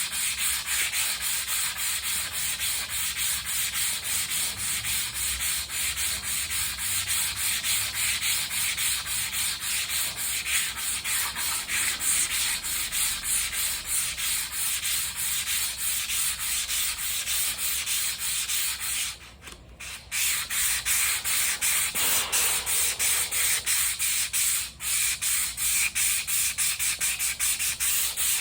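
Sandpaper being rubbed over a car spoiler in steady, rhythmic back-and-forth strokes, pausing briefly about two-thirds of the way through.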